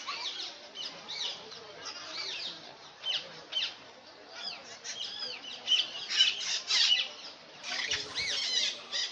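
Many parrots calling over one another: dense, overlapping short chirps and squawks that rise and fall in pitch, thickest around six to seven seconds in and again near the end.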